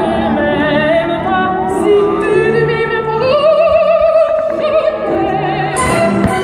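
Operatic singing with orchestra: a voice with vibrato holds long notes and steps up to a higher held note about three seconds in.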